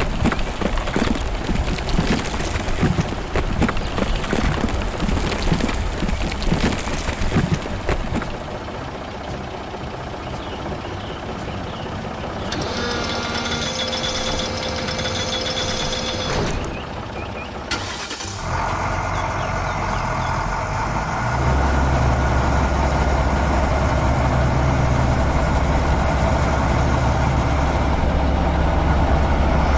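Cartoon construction-vehicle sound effects. Fast clattering comes first, then a pitched tone held for about four seconds. From about two-thirds of the way in, a heavy truck engine runs steadily, its rumble deepening and growing louder a few seconds after it starts.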